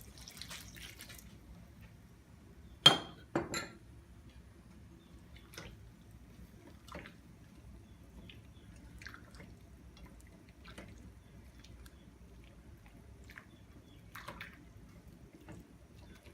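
Kitchen cookware clinking: a sharp clink with a brief ring about three seconds in, a second softer one right after, then scattered faint clicks and taps.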